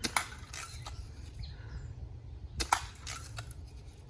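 Two BB gun shots about two and a half seconds apart, each a sharp crack.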